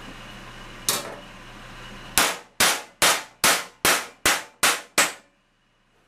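Small hammer striking the edge of an aluminium sheet held over a steel dolly, flattening a ridge. One blow, then about two seconds later eight quick, even blows, about two and a half a second, each ringing briefly.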